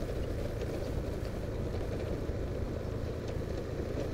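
A vehicle's engine running steadily as it moves along a road, a low even rumble.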